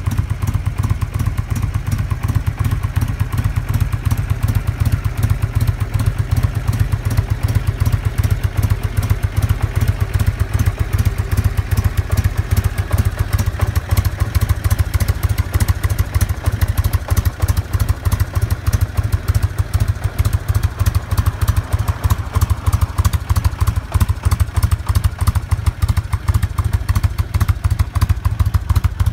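1997 Harley-Davidson FLSTS Heritage Springer's Evolution V-twin engine idling steadily through its chrome exhaust, with a fast, even, low exhaust pulse.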